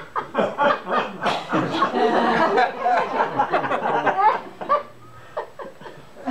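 Live audience laughing, many voices at once, loudest through the first few seconds and thinning out toward the end.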